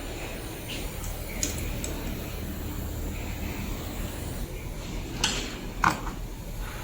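A few light metallic clicks and clinks, about a second and a half in and twice near the end, as metal parts are handled at a collet-type punch grinder, over the grinder's steady low hum.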